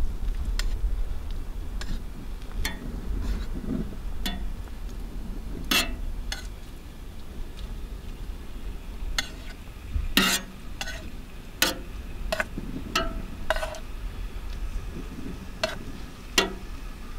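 Raw chicken pieces sizzling as they are set down on a hot, oiled steel griddle, with a dozen or so irregular sharp clicks of metal tongs against the griddle plate. A low rumble runs underneath.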